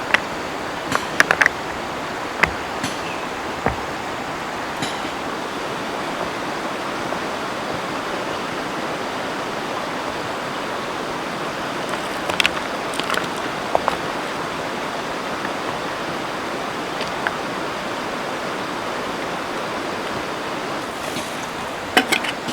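River water flowing steadily, with a few scattered light knocks and clicks now and then.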